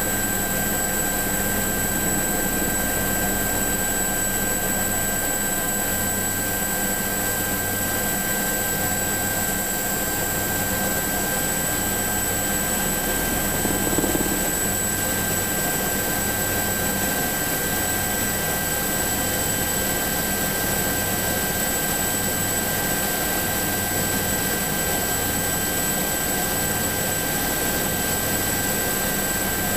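SA319B Alouette III helicopter in flight, heard from on board: its turboshaft engine gives a steady whine over the rotor noise, with a small bump about halfway through.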